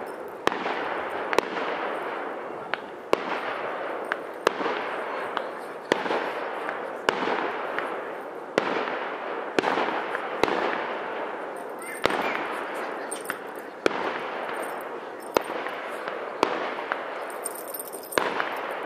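Aerial fireworks shells bursting about once a second, each sharp bang trailing off in a long rolling echo.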